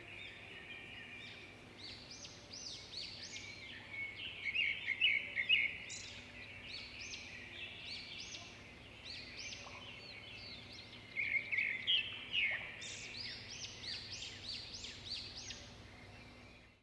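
Songbirds chirping and singing, many short quick notes overlapping, with louder busy bursts about a third of the way in and again past the middle.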